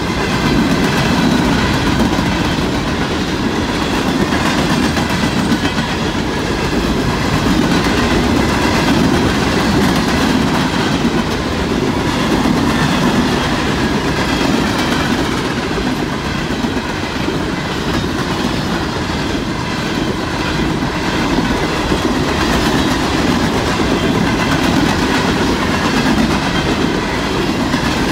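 Freight train of steel open-top hopper cars rolling past at speed: the wheels rumble and clack over the rail joints in a loud, steady, unbroken rolling noise.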